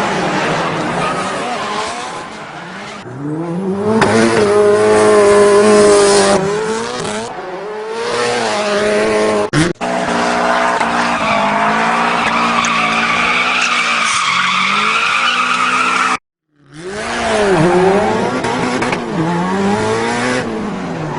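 Car drifting: a race car engine revving up and down with tyres squealing. The sound cuts out completely for about half a second roughly three-quarters of the way through, then starts again.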